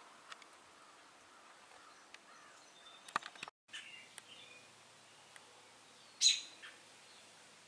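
Small birds chirping outdoors in short high calls, the loudest about six seconds in. A few sharp clicks come just after three seconds in, and the sound drops out for a moment.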